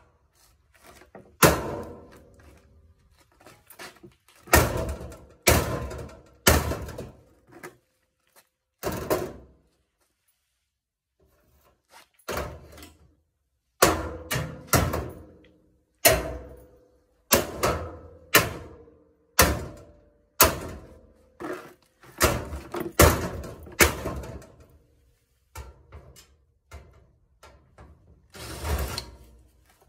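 Irregular metal knocks and bangs on a washing machine being dismantled for scrap, each hit ringing briefly. There are about twenty of them, with a quiet gap of a couple of seconds a third of the way in.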